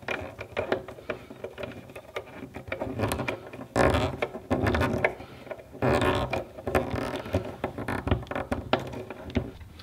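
Hand screwdriver turning and tightening the terminal screws of a 50 amp welder outlet: small metal clicks and scraping, with louder scrapes about four and six seconds in.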